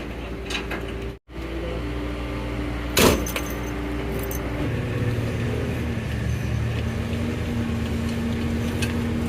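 A vehicle engine running steadily, with a single sharp knock about three seconds in. About a second later the engine note changes to a deeper, steadier hum.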